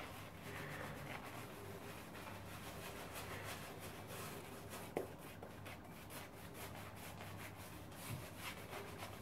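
Shaving brush working soap lather over a shaved scalp: a faint, continuous scratchy rubbing of bristles on skin, with a small sharp tick about five seconds in.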